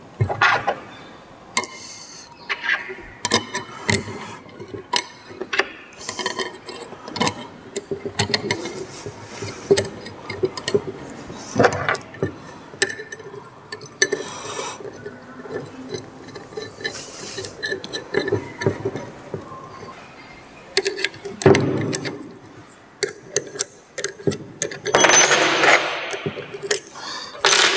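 Hand assembly of small steel parts: scattered metal clinks and clicks as the scissor-blade paper cutter is handled and fitted into its stand, then an open-end spanner works a nut and bolt, with a longer scraping rattle near the end.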